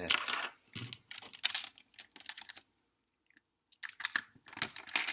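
Small plastic LEGO pieces clicking and rattling as bricks are picked out and pressed into place, in quick irregular clusters with a pause of about a second past the middle.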